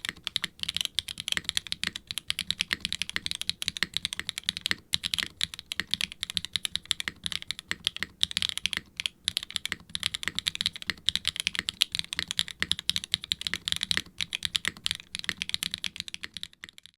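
Fast, steady typing on a mechanical keyboard with Swagkeys Ghost Dragon linear switches (POK top housing, nylon bottom, POM stem) in a silicone HIBI June R3 case with an FR4 plate and double-shot ABS keycaps: a bright, clacky run of keystrokes with brief pauses.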